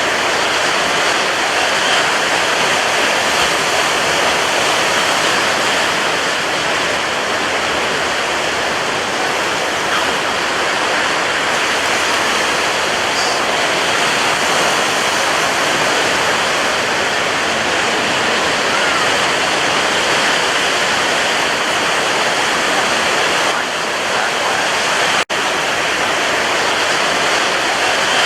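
Sea waves breaking as a continuous, even wash of surf, with a split-second gap in the sound about 25 seconds in.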